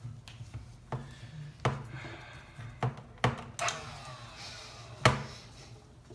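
Sharp clicks and knocks of plastic blaster parts and small hardware being handled and fitted together during assembly: about six separate knocks, some with a brief ringing tail, the loudest about five seconds in.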